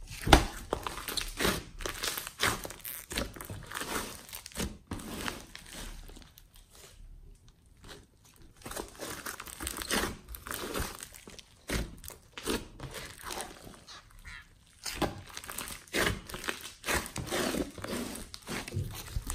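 Glossy slime mixed with clay, glitter and foam beads being squeezed, poked and stretched by hand: irregular wet crackling and squelching, with a couple of brief pauses.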